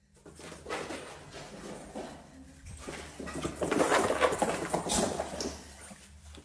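A dog, with a run of irregular short noises that is loudest a little past the middle.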